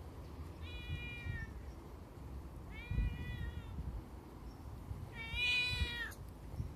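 A black street cat meowing three times, each call about a second long, the third the loudest.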